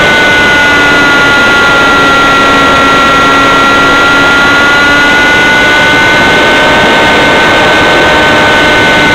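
ASP single-cylinder glow-plug model aircraft engine running at high revs, recorded right behind the cylinder head: a loud, high-pitched steady whine over a rushing noise. The pitch dips slightly a few seconds in, then climbs back.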